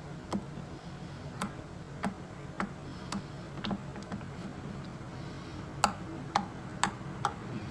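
Glossy slime being pressed and worked by hand, giving a series of sharp clicks and pops (about a dozen, irregularly spaced, louder and closer together in the second half), over a low steady hum.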